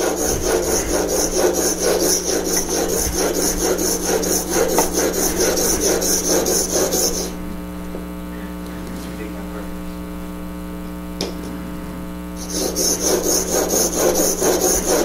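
Steel chisel blade rubbed back and forth on a sharpening stone, in quick, even scraping strokes. About seven seconds in the strokes stop for roughly five seconds, leaving a steady hum and a single click, then the sharpening resumes.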